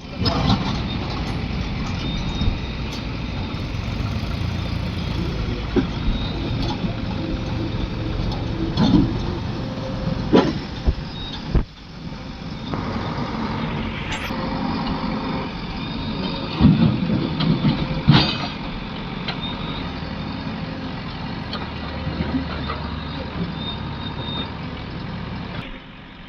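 Diesel engine of heavy earthmoving machinery running steadily under load, with several sharp knocks and clanks; the sound drops out briefly about twelve seconds in.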